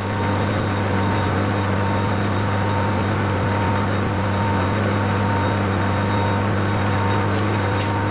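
Metal lathe running at speed with a steady hum while a light facing cut is taken across a small cast-iron cover.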